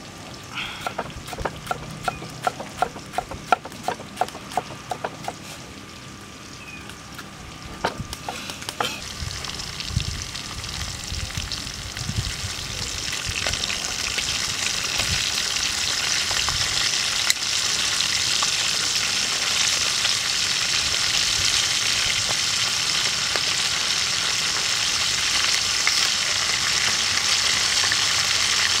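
A knife chopping tomato on a wooden chopping block, a quick run of sharp taps, then pork pieces deep-frying in hot oil in a steel wok: a steady sizzle that builds and is loudest from about thirteen seconds in, with tongs stirring and knocking the meat about.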